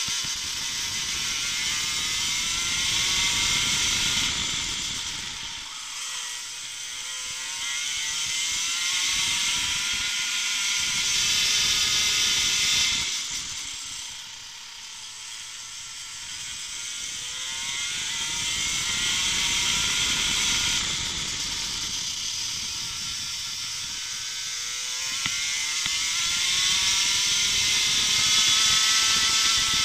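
Racing kart's two-stroke engine heard onboard at full throttle, its revs climbing steadily along the straights and falling away as it brakes for corners: a sharp drop about halfway through and a gentler dip a little later before it climbs again to the end. A steady rush of wind and tyre noise lies under the engine.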